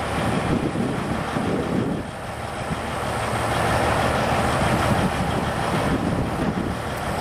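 A heavy diesel engine idling steadily, a little louder for a couple of seconds in the middle.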